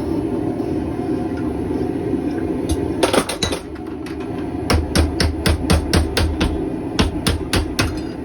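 Hand hammer striking a hot square stainless steel bar, straightening it after twisting: a few blows about three seconds in, then a quick run of about a dozen blows. A steady rushing noise runs underneath.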